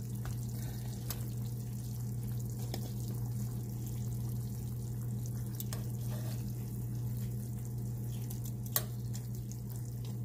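A steady low hum with faint crackling, and a few light clicks of metal tongs against a glass baking dish as beef short ribs are moved around in their pan juices; the loudest click comes near the end.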